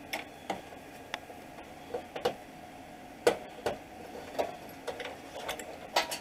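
Plastic push-pin clips being pried out of a car's radiator top cover with a small pry tool: irregular sharp clicks and snaps, about ten in six seconds.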